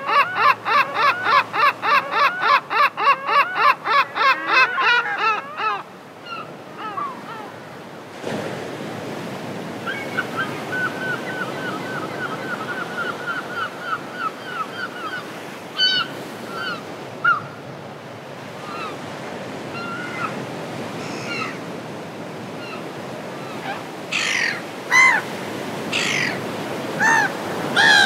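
Seagulls calling over the noise of surf. A fast run of loud, repeated calls, about four a second, fills the first five seconds. A quieter series of short calls follows from about ten seconds in, and loud, sharp single calls falling in pitch come near the end.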